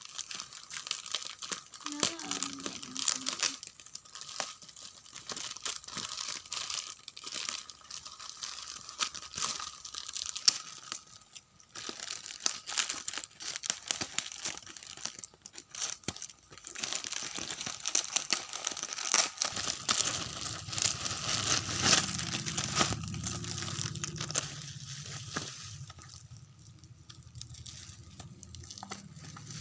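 Parcel packaging crinkling, rustling and tearing as it is opened by hand, with irregular small crackles and a few sharper rips.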